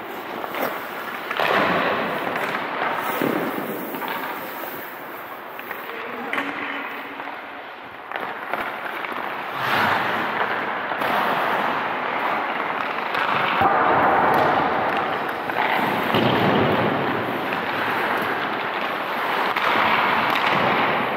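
Hockey skates scraping and carving on rink ice in repeated swells, with a few sharp cracks of pucks being shot or struck.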